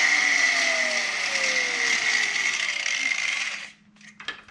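Grinder with a cutting wheel cutting into a Honda spindle's old bearing recess: a loud, steady grinding hiss with a slowly falling tone underneath, stopping about three and a half seconds in. A few light metal clinks follow.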